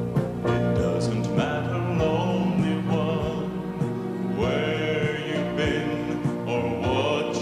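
A gospel-style Christian song: a singer holding long notes with vibrato over instrumental backing.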